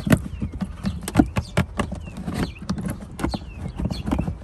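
Irregular sharp plastic clicks and knocks of a car's trunk trim panel being worked loose and pulled out by hand.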